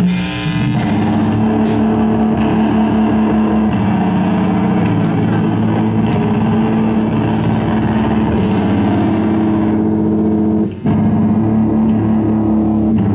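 Live rock band playing loud: electric bass holding low sustained notes over a drum kit with cymbal crashes, with a brief stop about eleven seconds in.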